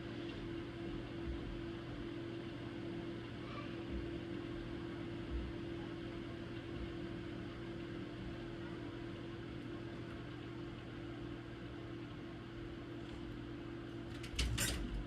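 Steady low mechanical hum from a running machine such as a fan or an appliance motor. Near the end comes a short cluster of sharp clicks or knocks.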